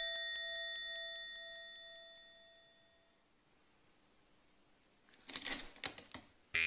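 A single bell-like ding strikes at the start and rings out, fading away over about three seconds. About five seconds in, a brief burst of clicks and rustling.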